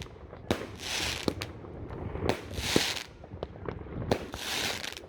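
Weco F2 firework battery (cake) firing. There is a shot about every 1.7 seconds, and each is followed by about a second of hissing, crackling burst, with small pops in between.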